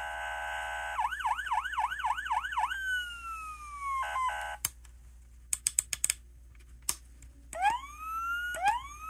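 Toy Dodge Charger model's electronic siren sound effects through its small speaker, set off by pressing on its underside. First a steady multi-tone blare, then a fast yelp of about four sweeps a second and a long falling wail. After a few sharp clicks, two short rising whoops come near the end.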